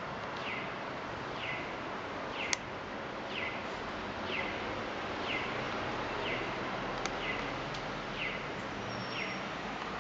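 Electronic chirp of a pedestrian crossing signal, a short falling 'piyo' tone repeated evenly about once a second, over a steady hiss of street noise. A sharp click about two and a half seconds in.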